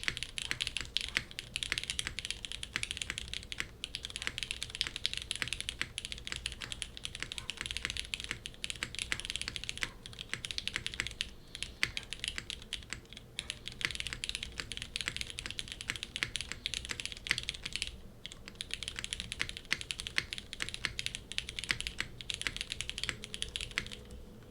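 Fast continuous typing on a Geonworks F2-84 mechanical keyboard with lubed Cherry MX Black linear switches in an aluminium plate and GMK keycaps, a dense run of keystroke clacks with a few brief pauses. The typing stops just before the end.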